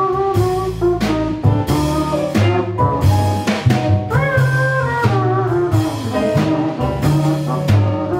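Jazz combo of guitar, piano, bass and drums playing an instrumental passage: a sustained melody line, with a note bending about four seconds in, over a bass line and drums with repeated cymbal strokes.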